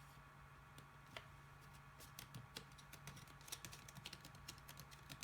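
Faint, irregular light clicks and crackles of paper being handled and pressed while gluing, starting about two seconds in and coming several times a second over a low steady hum.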